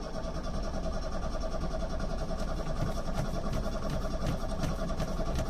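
Fiat Elba 1.5's starter motor cranking the engine in one long, steady, evenly pulsing crank, the engine not catching.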